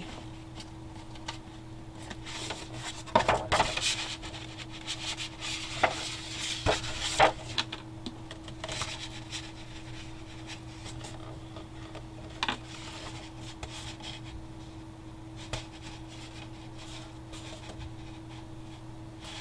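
Sheet of cardstock rustling and rubbing as hands fold it and press it down over a cardboard box, with a few light taps. It is busiest in the first half and sparser later, over a faint steady hum.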